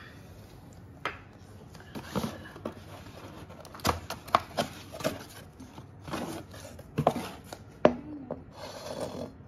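Unboxing handling noise: a small cardboard box scraping and rustling as its flaps are opened, with a scattering of light knocks on the laminate floor, the sharpest about four and eight seconds in as a vase is set down.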